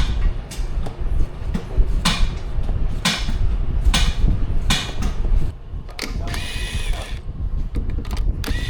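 Recoil starter of a Benchmark lawn mower's small engine pulled about five times in quick succession, each pull a short rasping whir of the rope and pawls, with the engine not catching while spark is checked. Two longer whirring stretches with a steady high tone follow near the end.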